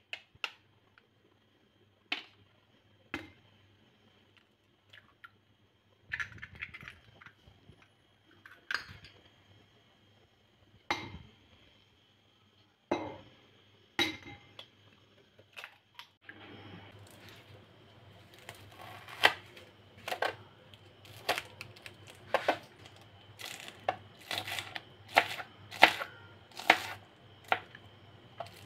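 Eggs tapped hard with a plastic tool and cracked open over a glass bowl: a handful of sharp, widely spaced taps. About halfway through, a knife starts chopping spring onions on a plastic cutting board, steady sharp strokes about one to two a second, growing louder.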